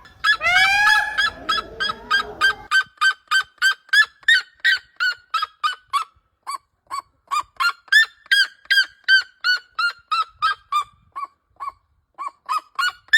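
Indian peafowl (blue peacock) calling: a drawn-out call first, then a long run of short, loud honks at about three to four a second, with two brief pauses.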